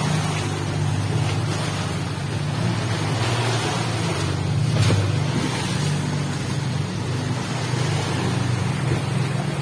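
A small boat's outboard motor running steadily while the boat is under way, with the rush of wind and water over it. The sound swells briefly about five seconds in.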